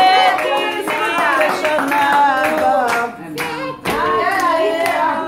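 A small group of people singing together while clapping along in time.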